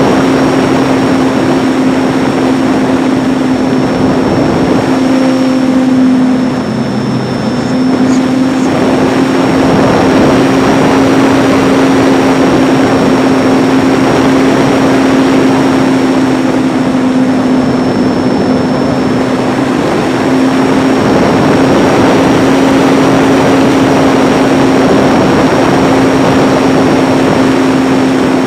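ParkZone T-28 RC plane's electric motor and propeller droning steadily in flight, with heavy wind rush over the wing-mounted camera's microphone. The drone briefly drops and comes back about seven seconds in, as the throttle eases.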